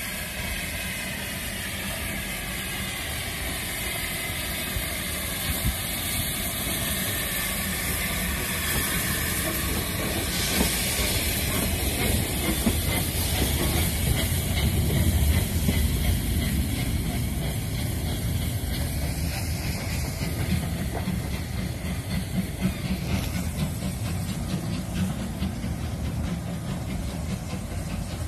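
LMS Jubilee class 4-6-0 steam locomotive 45596 Bahamas moving slowly past at low speed, with steady steam hiss and the rumble of its wheels on the rails. It is loudest as it draws alongside in the middle, with a louder rush of steam about ten seconds in, then fades as it moves away.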